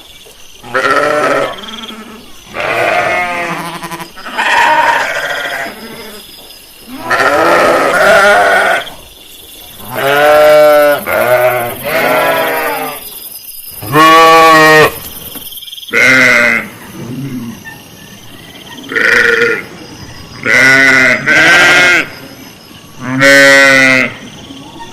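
Sheep bleating, about a dozen calls in turn, some long and quavering, separated by short pauses.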